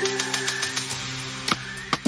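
Background music: held synth-like tones with the bass dropped out, and a sharp hit about one and a half seconds in.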